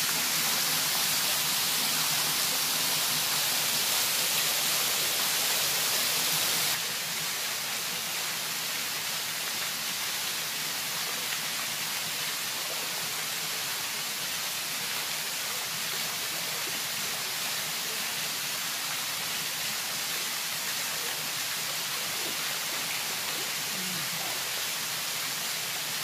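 Waterfall pouring into a rock plunge pool: a steady rushing hiss that drops a little in loudness about seven seconds in.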